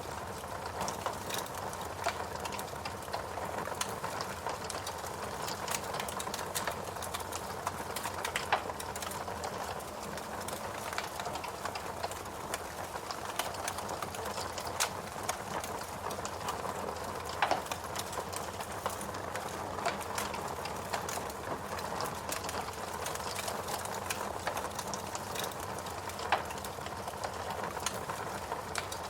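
Wood fire crackling in a fireplace: a steady hiss of burning logs with frequent small snaps and a few louder pops.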